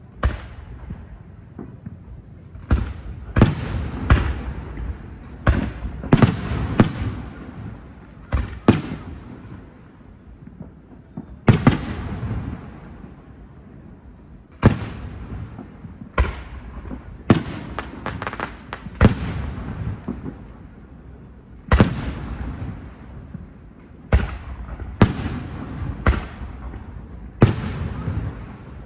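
Aerial firework shells bursting: about two dozen sharp bangs at irregular intervals, sometimes in quick pairs or triples, each followed by a rumbling echo that dies away.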